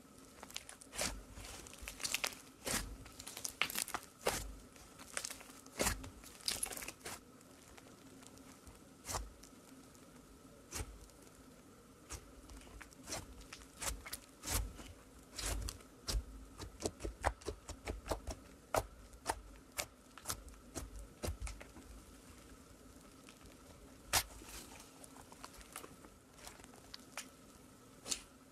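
Thick slime being pressed and kneaded by hand, giving off irregular sharp pops and crackles; they come thickly at first and in the middle, and more sparsely near the end, over a faint steady hum.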